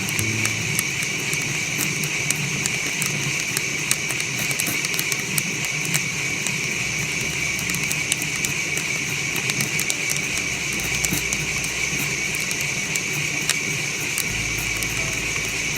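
Coffee beans cracking in a near-infrared (NIR) coffee roaster: many sharp pops at irregular intervals over the steady hiss of the running roaster, the sign that the roast has reached the crack stage.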